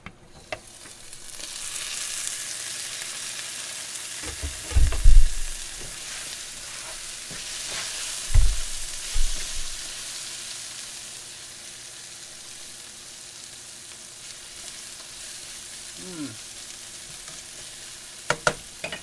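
Sliced squash and bell peppers sizzling in a hot skillet once the lid is lifted, the sizzle swelling about a second in and slowly dying down. A few dull knocks, about five and eight seconds in, come as the vegetables are stirred.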